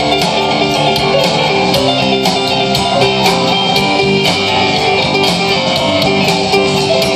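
Live band playing: a strummed acoustic guitar and an electric guitar over drums and keyboard, with a steady beat.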